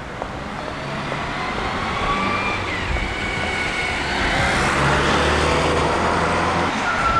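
Road traffic with a motor vehicle's engine running and drawing closer, growing louder about halfway through, with a few thin high tones over the traffic noise.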